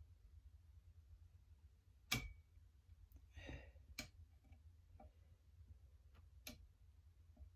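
A few faint small metal clicks as a knife blade presses a snap ring into the groove on the end of a rifle-stock screw: one sharp click with a brief ring about two seconds in, then lighter clicks spaced about a second apart, with a short rustle between them.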